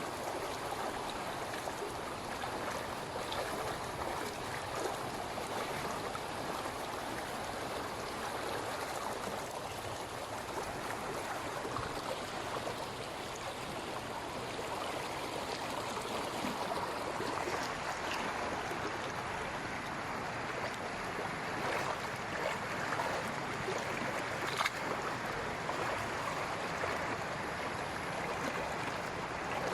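Steady rushing of flowing floodwater, with a few faint knocks.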